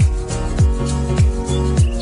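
Background music with a steady drum beat, a little under two beats a second, over held notes.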